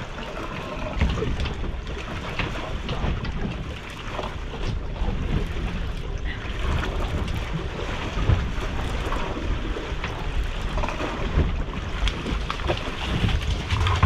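Wind buffeting the microphone over water sloshing against a fishing boat's hull, with scattered small knocks.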